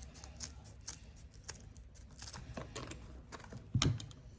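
Scissors snipping through a small piece of grass, with scattered short clicks and rustles, and one louder thump near the end.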